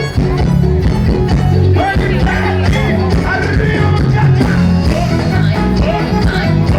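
Live forró band music played loudly: a steady pulsing bass beat under a bending lead melody.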